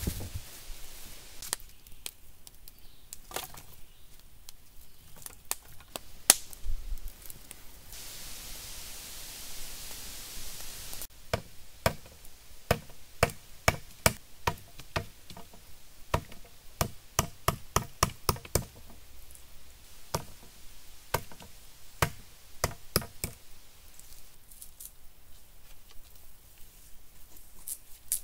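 Bushcraft knife chopping into a wooden pole: sharp knocks, scattered at first, then a quick run of about ten strokes a little past the middle, then scattered again.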